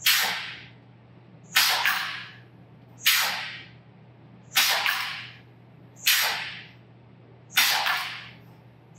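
Pneumatic poker chip dispenser cycling in auto mode: a sharp blast of compressed air about every one and a half seconds, six in all, each hiss fading out over about a second as a valve fires and exhausts with each dispensing stroke.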